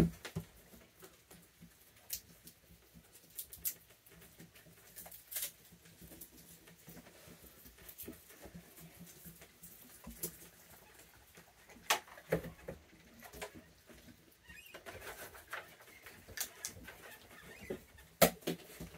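Raccoons moving about and handling food: quiet, scattered taps, scratches and a few sharper clicks.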